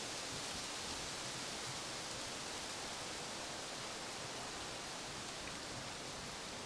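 Steady outdoor noise: an even rushing hiss that doesn't change, with no distinct events.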